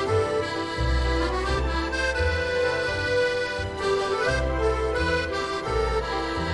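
Instrumental music: held melody notes over a low bass line that changes note about every second.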